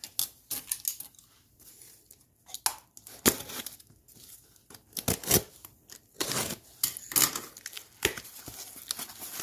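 A box cutter slitting the packing tape on a small cardboard shipping box, followed by the tape ripping and the cardboard flaps being pulled open, in irregular short scrapes and tears.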